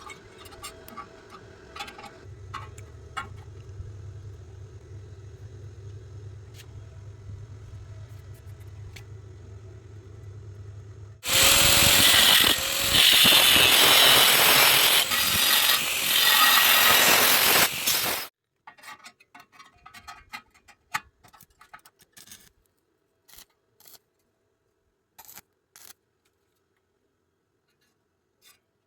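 Arc welding: a low hum for several seconds, then about seven seconds of loud, steady crackling hiss from the arc that stops suddenly. Scattered light metallic clicks and taps follow.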